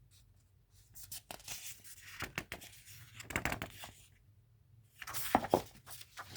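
Paper rustling and crinkling as a picture book's page is handled and turned, in two bouts with small clicks.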